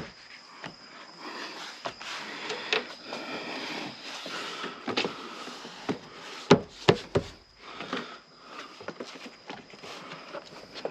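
Rubber door weather seal being pushed and snapped into place around a car's door opening by hand: scattered snaps and knocks with rubbing and rustling between, the loudest three sharp knocks in quick succession about six and a half seconds in.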